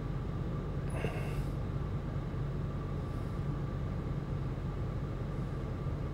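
Steady low background hum or drone, with a brief soft rustle about a second in.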